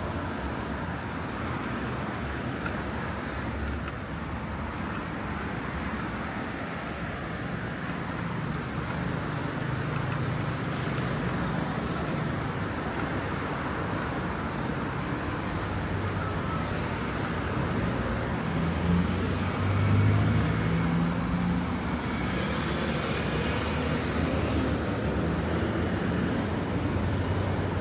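Steady city road traffic: a continuous wash of engine and tyre noise, with heavier engines passing louder about two-thirds of the way through.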